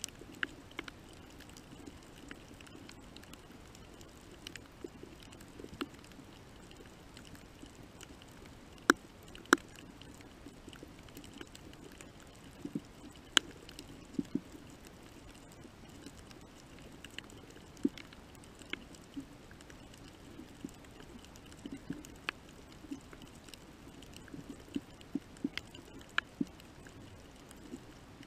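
Underwater reef sound recorded in the water: a low, steady hum with sharp clicks and pops at irregular intervals, a few of them much louder than the rest.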